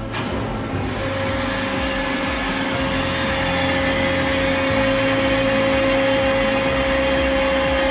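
Non-continuous-flow piston pump system running, heard as a steady machine hum with a constant mid-pitched whine.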